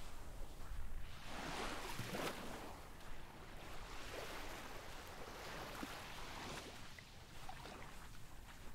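Faint Atlantic surf washing onto a sandy beach, swelling and easing in slow surges, with a low rumble of wind underneath.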